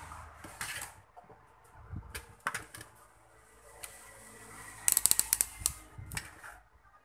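Sharp mechanical clicks and light clatter of small hard objects, with a pair of clicks about two and a half seconds in and a quick run of about eight to ten clicks about five seconds in.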